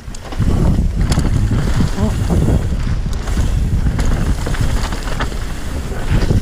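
Wind rushing over a helmet camera's microphone on a fast mountain-bike descent, with tyres rumbling over dirt and short rattles and knocks from the bike.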